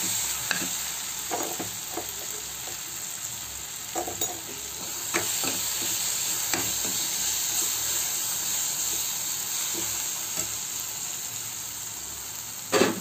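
Mushroom curry sizzling as it fries in a pan while a spatula stirs it, with scattered scrapes and knocks of the spatula against the pan and a louder knock near the end.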